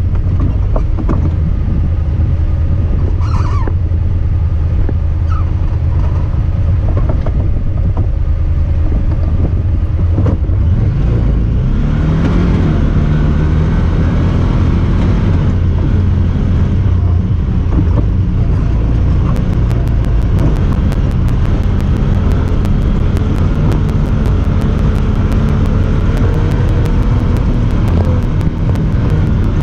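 Honda Talon 1000R side-by-side being driven, its parallel-twin engine running under load with a heavy low rumble. The engine pitch rises for a few seconds around the middle as it speeds up. Knocks and rattles come through in the first several seconds.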